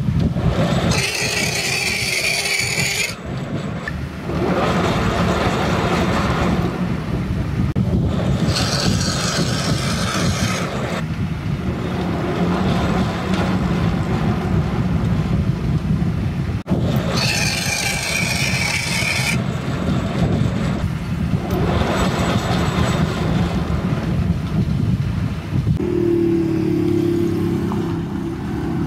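Metal lathe running with a steady low hum while screw-cutting an internal thread in a brass nut, with three bursts of high-pitched scraping, each about two seconds long, as the cutting tool passes through the brass.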